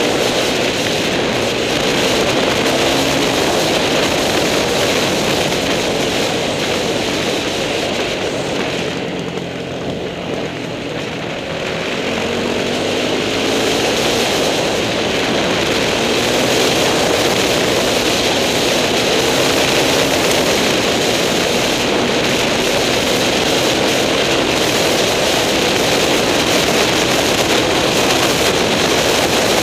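Trail motorcycle engine running steadily, mixed with rushing wind noise on the microphone; the engine eases off briefly about ten seconds in, then picks up again.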